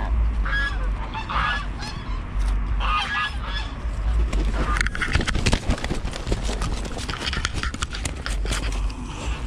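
A white domestic goose honking several times in alarm as it is chased, then wings flapping and scuffling over the second half as it is grabbed and held, over a low rumble of movement on the microphone.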